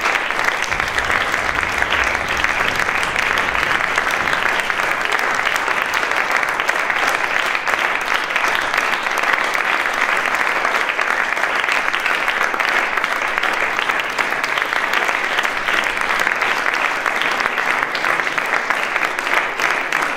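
Audience applauding: dense, steady clapping that holds at an even level throughout.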